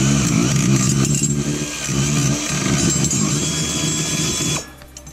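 Pneumatic wrench on a long extension running steadily, backing a bolt out of the bracket beneath the oil reservoir, with a buzz and an air hiss, then cutting off suddenly near the end.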